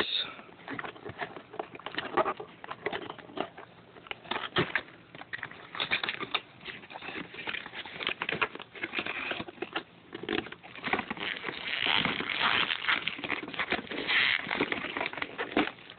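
Plastic and cardboard packaging handled and pulled apart: irregular crackling and crinkling of a clear plastic tray with scattered clicks, busiest near the end.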